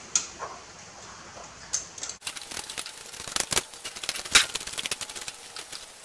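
Ratchet socket wrench clicking rapidly as it backs out a bolt, starting about two seconds in, with a few louder clacks among the clicks.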